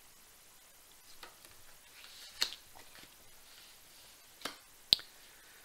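Tarot cards being handled and laid down on the table: faint rustling and sliding of cards, with a few light clicks and taps, the sharpest near the end.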